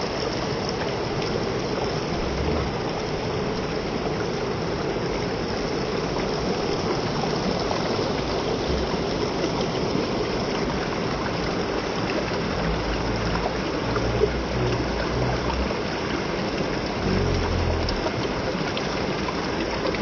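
Waterfall's water falling and splashing as a steady, dense rush, with some low rumbles in the second half.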